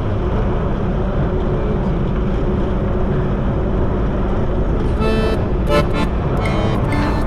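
Steady rumble of a road vehicle running, with several short horn toots from about five seconds in.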